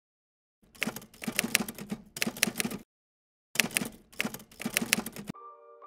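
Typewriter keystroke sound effect: two runs of rapid clacks, each about two seconds long, with a pause between. A light mallet-percussion tune starts near the end.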